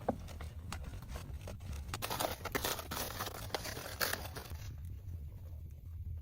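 Scraping, rustling and tearing handling noises with many short clicks, densest in the middle, over a steady low rumble.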